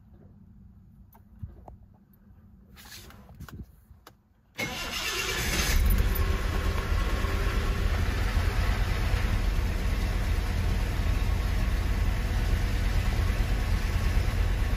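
1974 Jaguar engine cold-started. After a few quiet seconds of faint clicks and hum, the starter cranks briefly and the engine catches about five seconds in, then settles into a steady idle.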